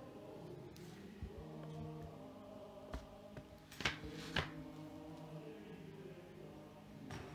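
Voices singing a hymn together in slow, sustained lines. About four seconds in come two sharp clicks half a second apart, louder than the singing.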